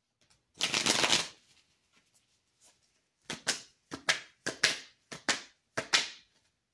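A tarot deck being shuffled by hand. There is one dense rustling burst of cards near the start, then a run of short card slaps, often in pairs, roughly two a second.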